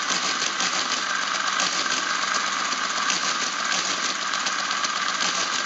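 Friden STW-10 motor-driven mechanical calculator working through an automatic long division, a rapid, steady mechanical clatter of its gears and carriage. The division mechanism is running properly after repair.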